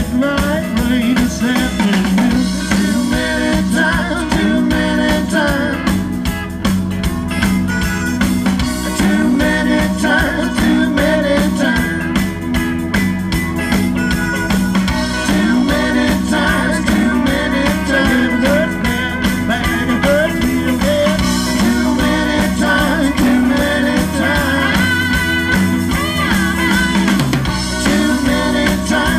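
A rock band playing live, with drum kit, guitar and a singing voice.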